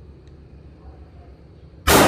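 A single shot from an M16A2 rifle in 5.56 mm, sudden and loud, near the end, after a low steady background rumble.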